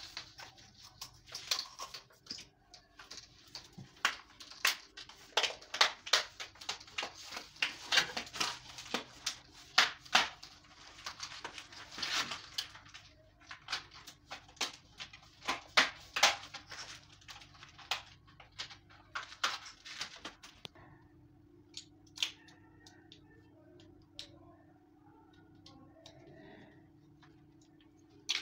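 Irregular sharp knocks and clicks, one or two a second, as white plastic cable trunking is pressed and fixed along a wall; they stop about 20 seconds in, leaving only a few faint clicks over a faint steady hum.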